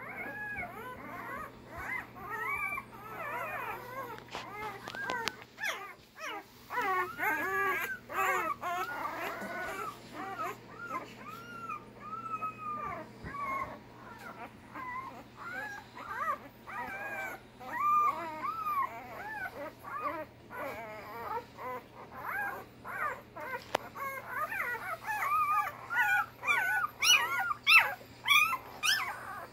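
A litter of week-old Labrador retriever puppies whimpering and squeaking, with many short rising-and-falling cries overlapping throughout. The cries grow louder and higher-pitched near the end.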